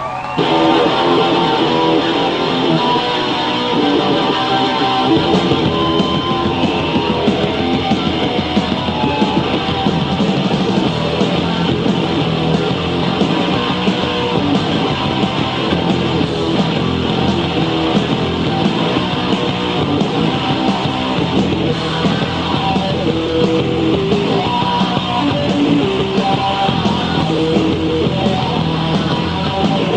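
Rock band playing live, loud distorted electric guitar over bass and drums in a fast punk-rock style. The full band comes in about half a second in, sharply louder than the quieter playing just before.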